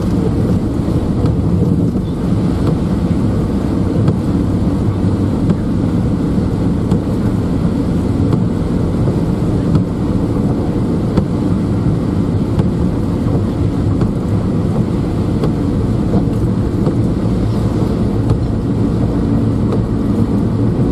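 A vehicle running steadily on the road: an even, low engine and road noise.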